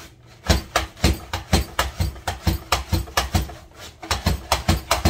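Pampered Chef Rapid Prep Mandolin slicing lettuce as its plunger is pumped: quick, sharp clacking strokes at about four a second, pausing briefly near the start and again about four seconds in.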